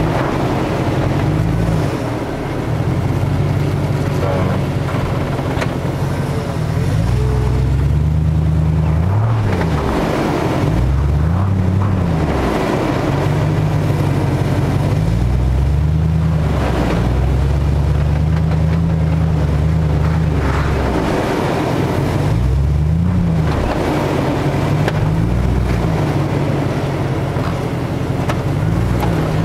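Jeep Grand Cherokee WJ's engine under load, crawling up a steep sandy slope, its low note rising and falling again and again as the throttle is worked.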